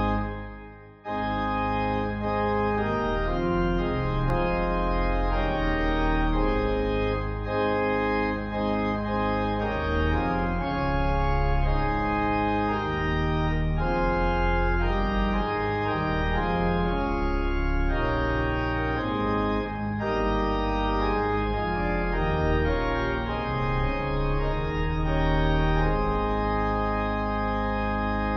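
Organ music: slow sustained chords in a hymn-like prelude, resuming after a brief gap about a second in.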